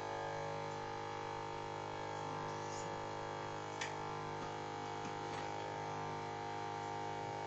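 The 24-volt electric hydraulic pump motor of a towable backhoe running with a steady hum, just switched on to work the boom. A single sharp click a little under four seconds in.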